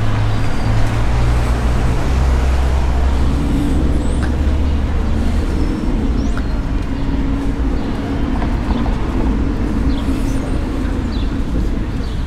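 Street traffic, with a motor vehicle's engine running close by as a low steady hum that is strongest over the first half and then fades.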